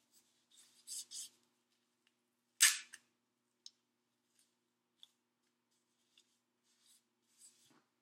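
White athletic tape being pulled off the roll and ripped during a foot taping: two short rips about a second in, a louder one near three seconds, then faint rubbing and ticks as the tape is smoothed down.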